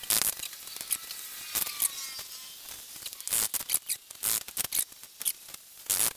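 Hand work on a fibreboard interior trim panel: irregular sharp clicks and scrapes as the panel's clips and edge trim are worked with fingers and a screwdriver, with a few faint squeaks.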